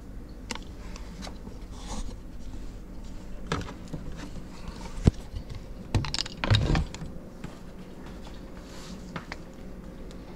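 Scattered light clicks, knocks and rustling as someone moves about inside a kitchen sink cabinet among plastic cleaning bottles. A louder cluster of bumps and shuffling comes about six to seven seconds in.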